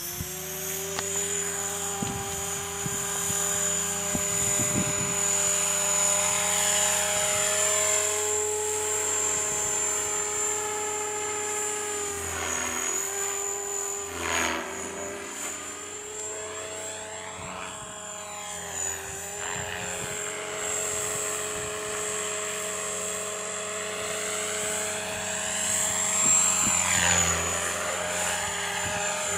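Align T-Rex 500 electric radio-controlled helicopter in flight: a steady high whine with a lower hum under it. The pitch sweeps up and down a few times as it swoops past.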